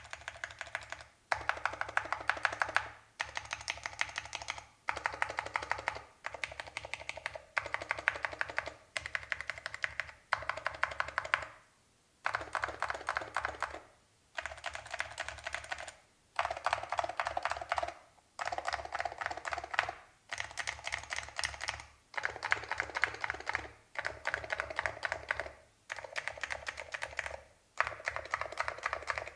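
Fast typing on a mechanical keyboard with lubed Alps SKCL Green linear switches, the keystrokes coming in quick runs of about a second and a half with short pauses between.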